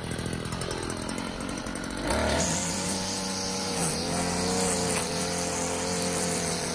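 A small petrol garden-tool engine, of the kind in a lawn mower or whipper snipper, running steadily. About two seconds in the sound changes abruptly to a louder, steadier running note.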